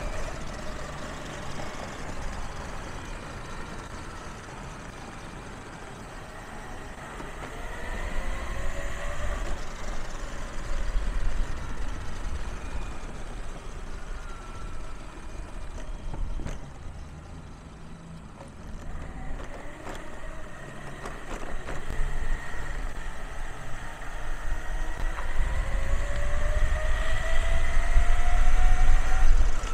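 Electric mountainboard riding over brick pavers: the steel helical reduction gears whine, rising and falling in pitch with speed, over the steady rumble of the wheels on the paving. The whine fades in the middle, then climbs and grows loudest near the end as the board speeds up.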